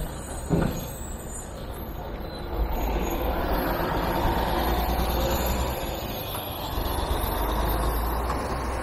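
City street traffic with heavy vehicles among it, heard over low wind rumble on the microphone of a moving e-scooter. The noise swells about two and a half seconds in.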